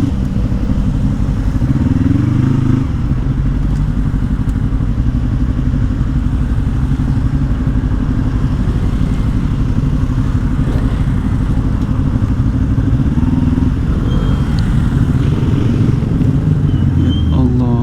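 Yamaha R25 V2 parallel-twin engine running on the road, its pitch rising a couple of times as the bike accelerates.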